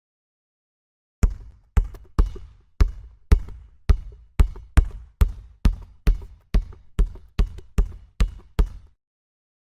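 A basketball dribbled on a court floor: a steady run of about seventeen bounces, roughly two a second and slightly quickening, starting about a second in and stopping shortly before the end.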